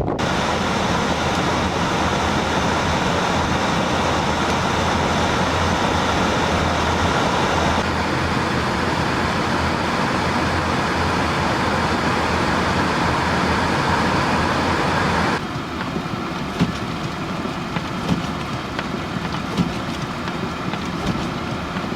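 A vehicle engine running steadily under loud blizzard wind. It cuts off abruptly about two-thirds of the way through, leaving lower wind and road noise with a few sharp knocks.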